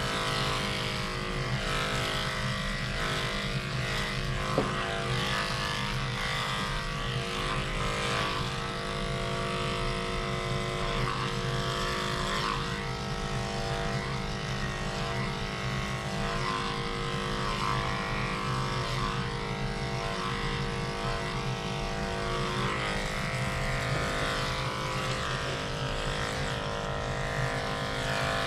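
Cordless dog grooming clippers running steadily as the blade works through a dog's coat, a constant motor hum.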